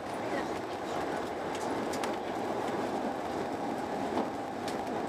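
Steady running noise of a Eurostar Italia train at speed, heard from inside the passenger car, with a few faint clicks from the track.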